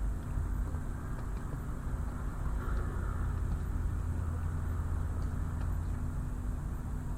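Harbour ambience: a steady low engine rumble with a constant hum, and a few faint ticks.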